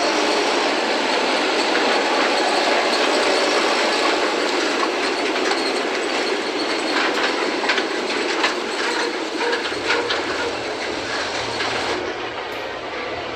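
Mechanized harvesting machinery running with a dense, steady clattering rattle, with sharper clicks and knocks through the middle.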